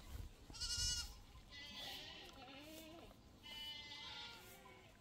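Goats bleating several times: a high, quavering bleat about a second in, then more bleats around two and four seconds in.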